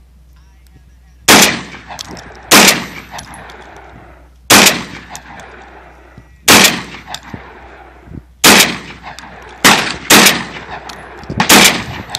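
Benelli M4 semi-automatic 12-gauge shotgun firing seven shots in a slow, uneven string about one to two seconds apart, each shot trailing off in a short echo.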